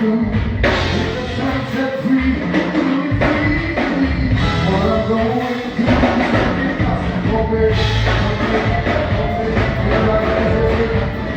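Band music with a singing voice over drums and bass.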